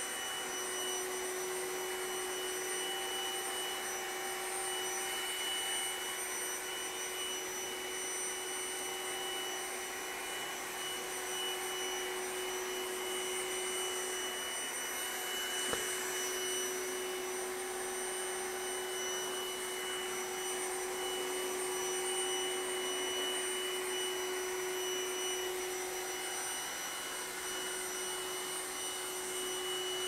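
Trifo Lucy robot vacuum cleaner running steadily on maximum suction: a constant hum with a high whine over a rushing hiss, and one faint click about halfway through.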